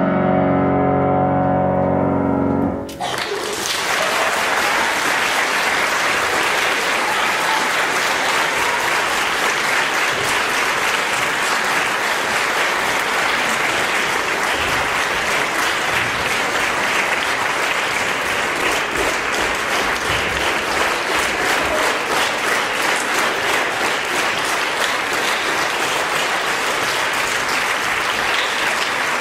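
Grand piano's final chord rings and cuts off about three seconds in. An audience then applauds steadily.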